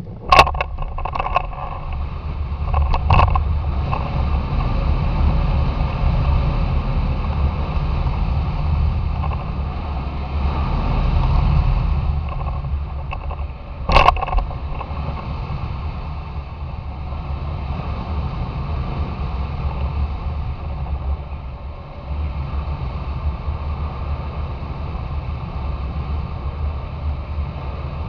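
Wind rushing over a camera mounted on a hang glider's wing tip during a winch-towed launch and climb: a steady low rumble that swells and eases. Several sharp knocks in the first few seconds and one more about halfway through.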